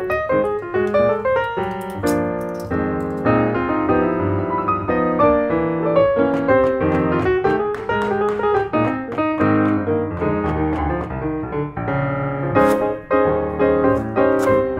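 Background piano music: a melody over chords.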